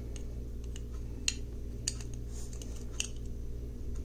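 Small clicks and taps of a diecast toy car's metal base, plastic interior and body being handled and fitted together, three sharper clicks among a few fainter ones, over a steady low hum.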